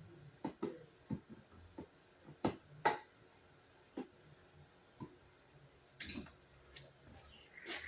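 Irregular sharp clicks and light knocks, about a dozen spread out with no steady rhythm, the loudest two a little under three seconds in. They come from handling hand tools and hardware while finishing a wall receptacle.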